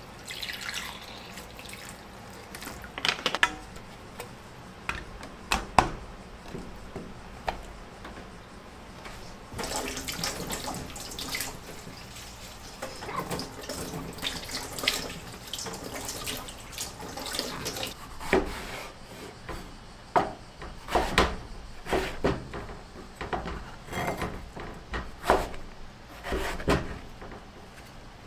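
Kitchen food preparation: water poured into a glass dish, and water running for a few seconds, mixed with the knocks of a kitchen knife and produce on a wooden cutting board. Sharp knife strokes come more often in the last ten seconds, as a bell pepper is sliced.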